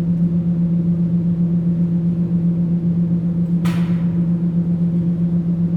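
Electric arc welding: a steady low buzz that wavers slightly, with a short burst of hissing crackle about three and a half seconds in.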